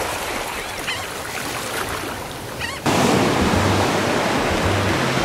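Ocean surf washing on a beach, a steady rushing noise that grows louder and fuller about three seconds in.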